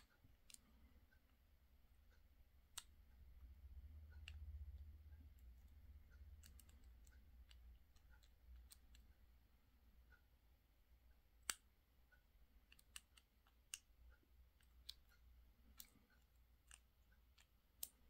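Faint, scattered clicks of a lock pick working the security pins inside a Master Lock Pro Series 6321 padlock under tension from a tension wrench, with one sharper click about eleven and a half seconds in. A low rumble runs from about three to seven seconds in.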